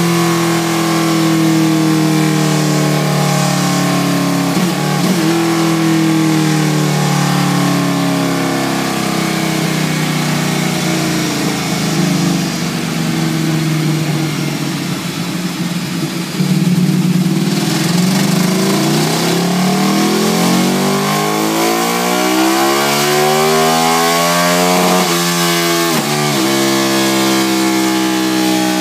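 Ducati Streetfighter 848's L-twin engine running through a Termignoni exhaust on a rolling-road dyno. About halfway through, the revs climb steadily for several seconds, then drop sharply and settle back to a steady run.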